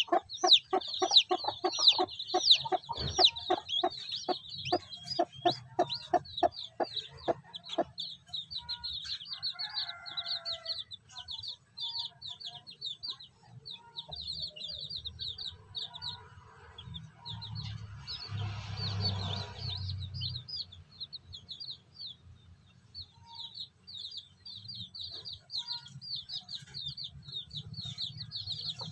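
Newly hatched chicks peeping continuously under a broody hen. For the first eight seconds the hen clucks in a steady run of about three low clucks a second. A soft rustle lasts a couple of seconds past the middle.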